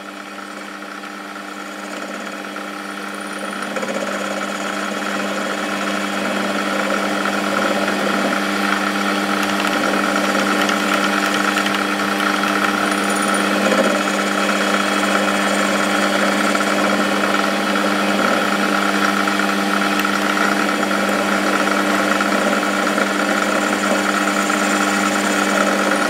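Small metal lathe running at 1000 RPM, its spindle and gearing giving a steady hum while the tool faces off a one-inch slug of home-cast aluminium. The cutting noise builds over the first few seconds and then holds steady as the aluminium machines cleanly.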